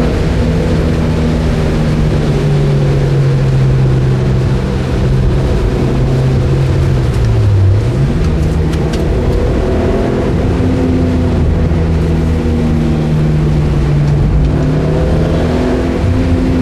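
Mitsubishi Lancer Evolution MR FQ360's turbocharged four-cylinder heard from inside the cabin, running hard at a steady pitch over a constant rush of road noise from the wet track. About halfway through its note sags and dips briefly, then jumps back up and holds steady again.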